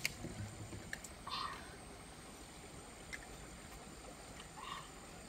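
A few sharp clicks of metal spoons against bowls while eating, with two brief soft hissy sounds, over a steady high-pitched insect drone.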